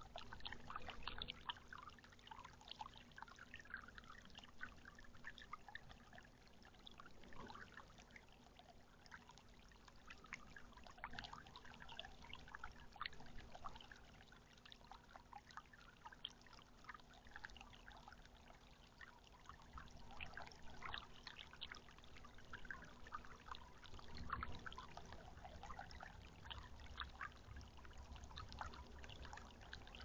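Birdbath bubbler fountain trickling and splashing back into the bath water, faint and continuous, with a faint steady hum underneath.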